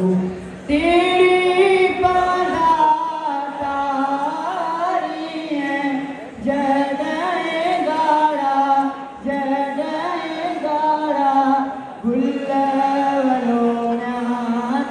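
A man singing unaccompanied into a hand-held microphone, his voice carried over a hall's sound system: long, wavering held notes in phrases of a few seconds, with short breaks for breath about half a second, six, nine and twelve seconds in.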